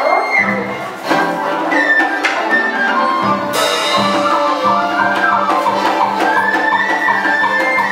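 Traditional Vietnamese folk ensemble playing live water-puppet accompaniment: a melody with sliding, bending pitch over a steady low tone, with scattered percussion strikes.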